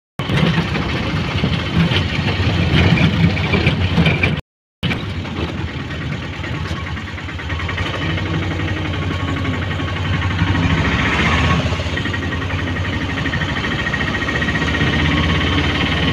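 Auto-rickshaw engine running steadily while the three-wheeler drives along, heard from inside the cab, cut off briefly once about four seconds in.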